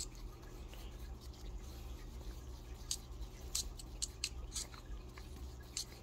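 Faint light clicks and scrapes of a wooden skewer stirring epoxy resin in a plastic mixing cup, scattered through the second half, over a steady low hum.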